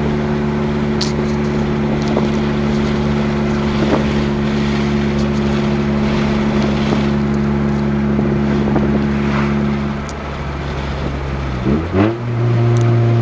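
2000 Acura EL's 1.6-litre four-cylinder engine running steadily through its stock exhaust, which has a leak. About ten seconds in the engine note drops, then near the end the revs rise again in a short climb.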